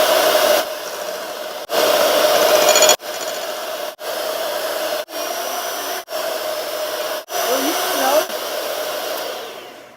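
Electric hand mixer running steadily, beating cake batter, with a few brief breaks and shifts in level. It winds down and stops near the end.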